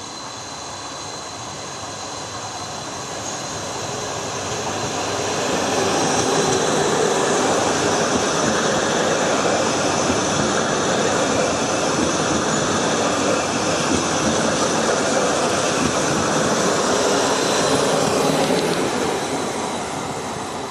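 Trenitalia ETR 170 (Stadler FLIRT) electric multiple unit running past on the rails. The sound builds over the first several seconds as the train draws level, holds steady while its cars go by, and fades near the end.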